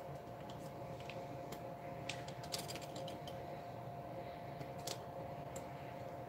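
Faint, scattered small clicks and taps of metal on metal as a mainspring clamp is worked into the brass movement of a 31-day clock, over a faint steady hum.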